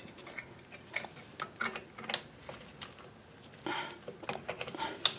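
Scattered light metallic clicks and taps from rear drum brake shoes and their springs being shifted by hand on the backing plate, with a brief scrape near the end.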